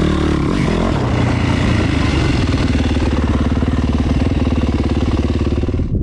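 Yamaha 450 motocross bike's four-stroke single-cylinder engine heard from on board while riding through a berm: the revs rise and fall in the first second, then the throttle is held fairly steady before the sound cuts off suddenly at the end.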